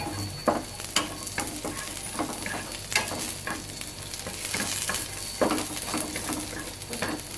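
Shallots, garlic and chillies frying in peanut oil in a non-stick wok, sizzling steadily while a wooden spatula stirs them, with frequent short taps and scrapes against the pan. They are being fried hot to char and caramelize.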